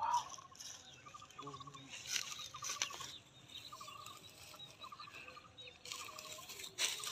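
Hands rummaging through wet mud on a plastic sheet, with a few sharp rustles and slaps that stand out just after 2 s, near 3 s and near 7 s. Behind them, a short rapid ticking call repeats about once a second.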